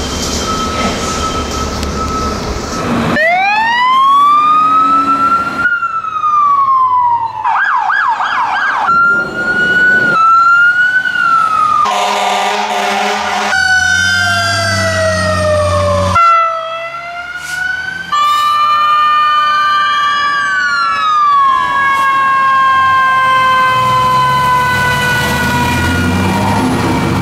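Fire engine electronic sirens in a string of short cuts: a wail rising to a steady pitch, a fast yelp, and long falling tones as trucks pass. The low rumble of the trucks' engines runs underneath.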